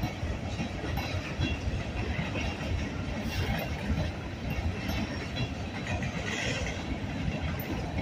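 Freight train cars rolling past close by: a steady rumble and clatter of steel wheels on the rails, with a couple of brief sharper noises about three and six seconds in.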